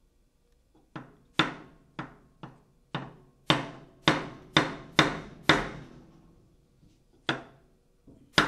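Sharp metal-on-metal knocks with a short ring, about two a second: a hydraulic test head's body being knocked down over its steel piston rod to work the rod through a freshly fitted seal and O-ring. About ten come in a quick run, then after a pause one more, and another right at the end.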